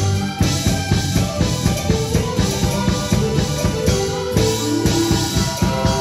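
Taiwanese opera (gezaixi) accompaniment playing an instrumental passage with no singing: busy, rapid drumming under held melodic notes.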